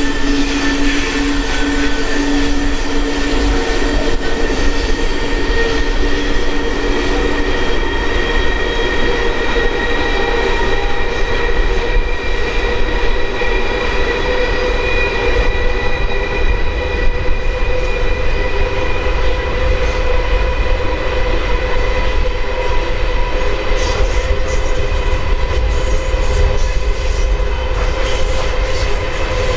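Iron-ore wagons of an LKAB ore train rolling past behind IORE electric locomotives: a steady loud rumble of wheels on rail, with several high, steady whining tones over it. A lower hum fades out about seven seconds in.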